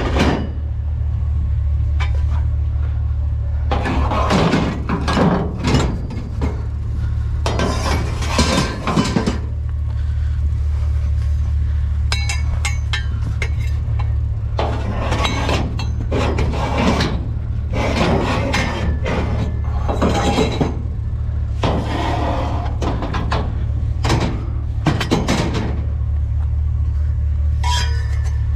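Metal scrap clanking and rattling as it is handled, in repeated irregular bursts, over a steady low rumble.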